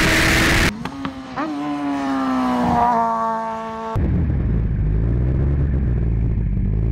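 Racing sidecar outfit's engine slowing into the pit lane: a brief rush of wind at speed cuts off, the engine's pitch falls with two quick throttle blips as it comes down through the gears, and about four seconds in it settles to a low, steady rumble at low revs.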